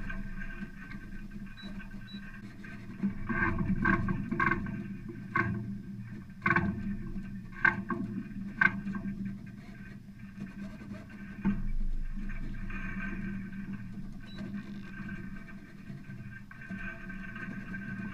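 Water rushing along the hull of a small sailboat under way, with a run of sharp clicks and knocks from work at the mast about three to nine seconds in.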